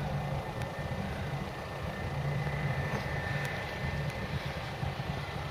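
Wizz Air Airbus A320's jet engines running at low taxiing thrust, heard at a distance as a steady low rumble with a faint high whine.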